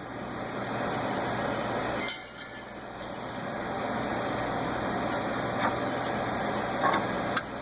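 Steady background noise with a short dip a couple of seconds in, and a few light clicks near the end.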